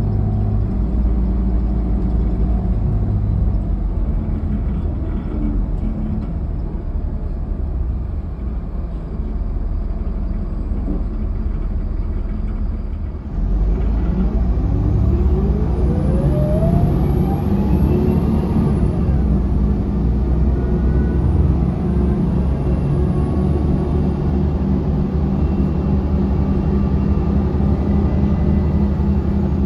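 Inside a 2005 Mercedes-Benz OH1728 bus under way, with a steady engine and road rumble. The rumble eases off for a while, then the engine pulls hard again about halfway through. As the bus speeds up, the ZF automatic transmission gives a rising whine.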